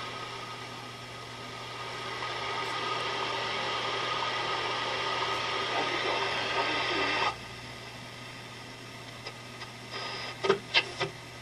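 Heathkit AR-3 tube shortwave receiver on its 10–30 MHz band, giving off hiss and static over a steady low hum as it is tuned. The noise drops suddenly about seven seconds in, and a few short whistles and chirps come through near the end as the dial passes signals.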